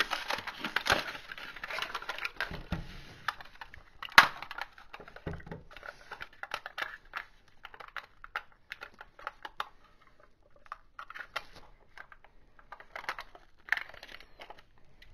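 Plastic Snack Pack pudding cups and their cardboard sleeve being handled: a run of small clicks and crinkles, with one sharper click about four seconds in. Near the end the foil lid is peeled back from a cup.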